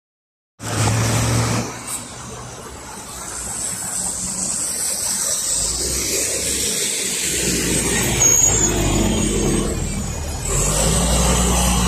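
NefAZ 5299-30-51 city bus with a Mercedes-Benz M906 LAG compressed-natural-gas engine, running as it drives past close by. A brief high squeal comes about eight seconds in.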